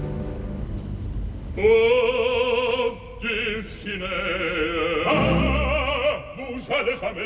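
Male opera singer singing with a wide vibrato over orchestral accompaniment. The voice comes in about a second and a half in, moves to a new phrase a little after three seconds, and lower orchestral notes swell beneath it about five seconds in.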